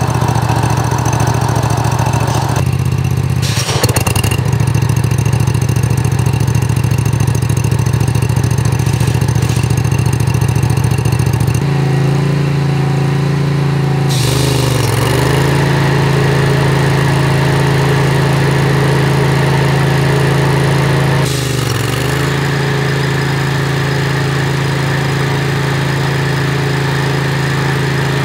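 Spartan riding mower running with its cutting deck engaged: the engine and the belt-driven deck pulleys turning at a steady speed, a continuous hum. The tone shifts about 12 seconds in, and the pitch dips briefly twice later on.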